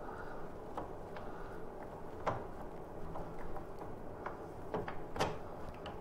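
Scattered light clicks and knocks of a spacer and the lower eye of an Ohlins rear shock being handled and lined up with the suspension linkage, the sharpest about two seconds in and just after five seconds.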